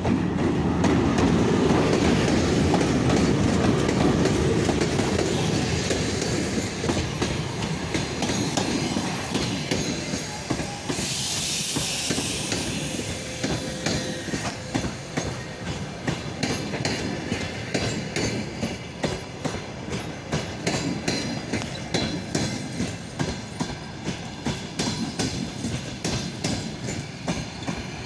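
VL82M dual-system electric locomotive running past at the head of a passenger train arriving at a station, with a heavy rumble for the first few seconds. The passenger coaches then roll by with a steady clickety-clack of wheels over the rail joints. A brief hiss comes about eleven seconds in.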